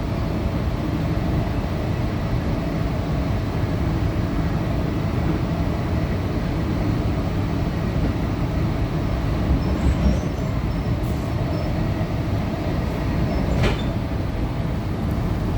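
Interior running noise of a Tangara (T set) electric multiple unit travelling at speed: a steady low rumble of wheels on rail. Two short sharp clicks come through, about ten and fourteen seconds in.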